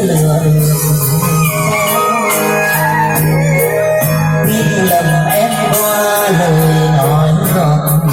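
Music with a steady beat, a bass line and a melody.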